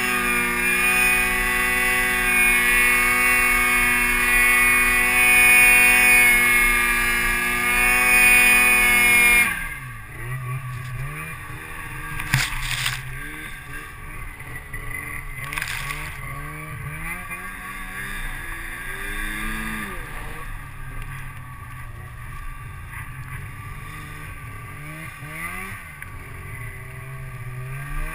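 Snowmobile engine running at high, steady revs while ploughing through deep powder, then about a third of the way in the throttle comes off and the engine drops sharply to a lower, wavering speed. Two short knocks follow a few seconds later.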